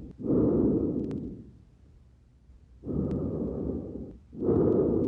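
Breath sounds heard through a stethoscope on the front of the chest: two breaths, each in two parts with a brief gap between, the second part louder.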